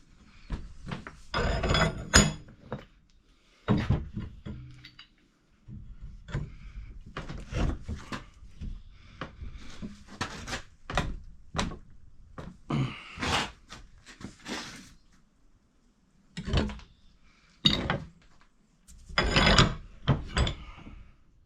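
Irregular knocks, clunks and short scrapes of a mower blade and hand tools being handled and worked on, some strikes ringing briefly.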